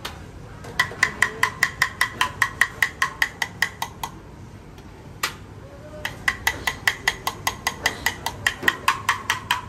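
Rapid metallic tapping in a cooking kitchen, metal striking metal about four times a second with a ringing tone. It pauses for about two seconds in the middle, with a single strike in the gap, then resumes.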